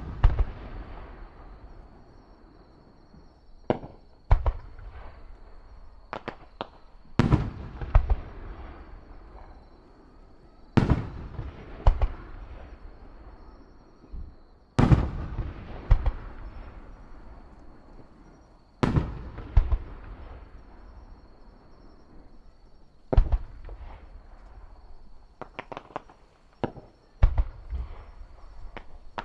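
Fireworks going off: loud booms every few seconds, each followed by a rumbling echo that dies away, with a quicker run of sharp crackling reports near the end.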